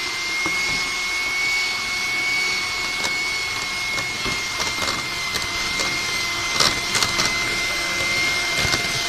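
Electric hand mixer running at a steady speed with an even whine, its beaters churning chocolate cake batter in a metal bowl. A few sharp knocks come about seven seconds in.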